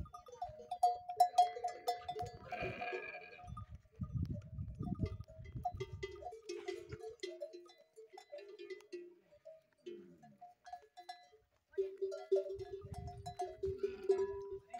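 Metal bells hung on dromedary camels' necks clanking and ringing on and off as the herd moves, with the camels calling now and then.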